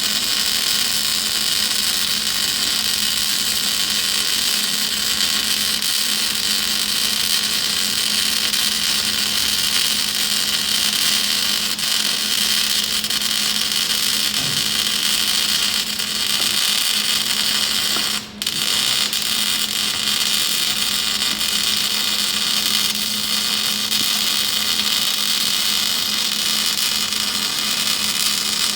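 Welding arc running with a steady, loud hiss over a constant hum. It breaks off for a moment about eighteen seconds in, then carries on.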